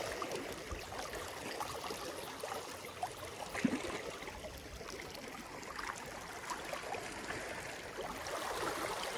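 Small waves lapping and sloshing against rocks at the water's edge, a steady even wash, with one soft knock about three and a half seconds in.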